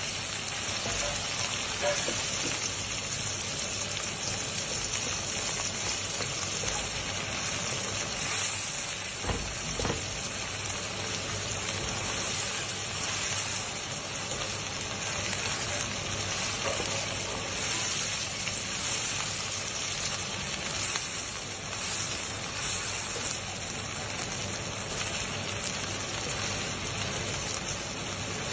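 Meat and chilli paste sizzling steadily in hot oil in a wok while being stirred with a wooden spatula.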